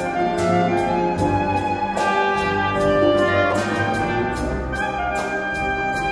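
Soprano saxophone playing a solo melody in sustained notes over a full symphony orchestra, strings included.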